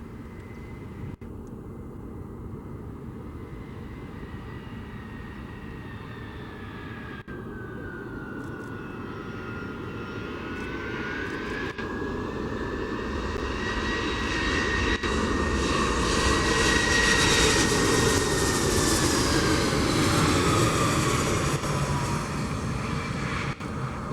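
Four-engine Ilyushin Il-76 jet freighter passing close on its landing approach: a jet roar with a high whine that grows steadily louder, peaks about two-thirds of the way in, then fades as the whine slides down in pitch.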